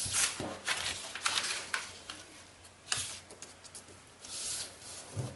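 Thin kami origami paper rustling and crackling as a corner is folded to the centre and the crease is pressed flat by hand, with several short crisp crinkles.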